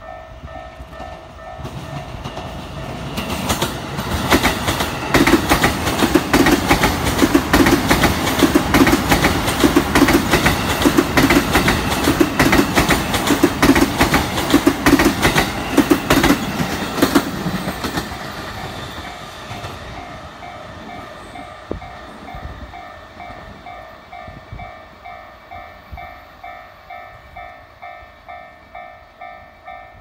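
An E233-series electric commuter train passes close by, its wheels clacking rhythmically over the rail joints. It builds from about three seconds in and fades away after about seventeen seconds. Throughout, a railway level-crossing alarm rings on with a steady ding, about two a second.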